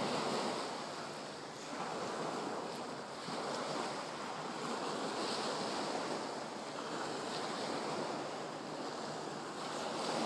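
Small waves breaking and washing up a pebbly beach: a steady surf hiss that swells and eases every couple of seconds.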